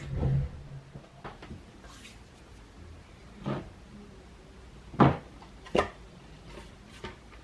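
A few sharp knocks and clacks from skateboard parts and tools being handled and set down, the loudest about five seconds in.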